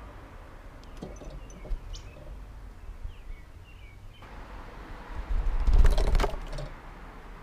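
Wild birds at a backyard feeder chirping faintly a few times. About five and a half seconds in comes a loud rustling burst close to the microphone that lasts about a second.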